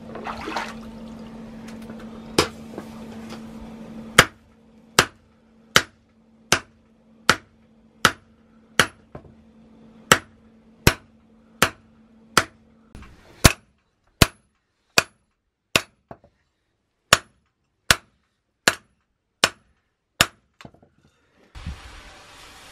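Hand hammer striking metal in a blacksmith's forge: about twenty sharp, ringing blows at an even pace of a little more than one a second, with a short pause partway through. A steady low hum runs under the first half and stops, and a steady hiss starts near the end.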